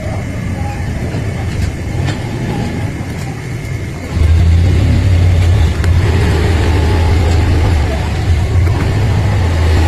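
Low, steady motor-like hum, which gets louder about four seconds in.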